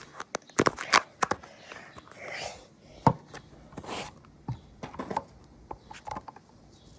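Irregular clicks, taps and light knocks of small objects being handled, with a little rustling and scraping in between.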